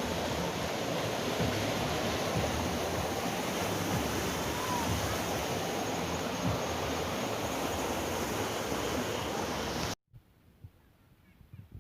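Steady rush of water from a waterfall swollen by floodwater. It cuts off abruptly about ten seconds in, leaving near silence.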